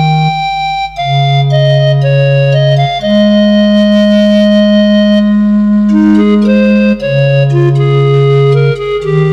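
Background music on an electronic keyboard with an organ-like sound: held chords over a low bass note that changes about every two seconds, with single notes stepping up and down above.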